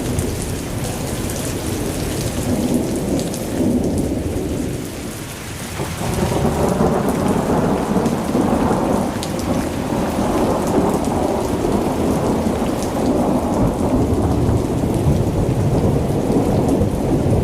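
Heavy rain pouring down, with a deep rumble underneath. It dips briefly about five seconds in, then comes back louder and fuller.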